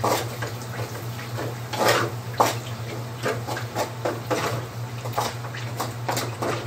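Wooden spatula stirring fried rice in a metal wok, with many quick, irregular scrapes and taps against the pan. A steady low hum runs underneath.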